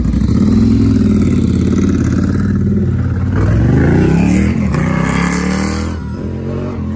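Sport motorcycle engine accelerating hard away, its pitch climbing and dropping with each upshift, then growing fainter near the end.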